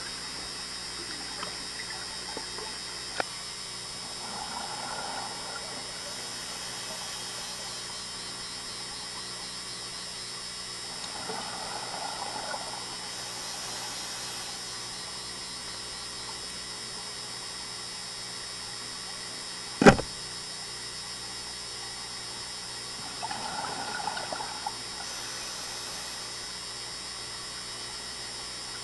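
Scuba regulator exhaust bubbles gurgling in bursts every several seconds over a steady hum. One sharp, loud knock about twenty seconds in is the loudest sound.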